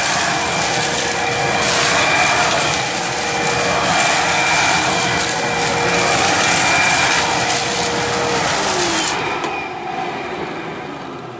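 Bagless Hoover vacuum cleaner running steadily with a motor whine and rushing air. About eight and a half seconds in it is switched off: the whine slides down in pitch and the noise dies away as the motor winds down.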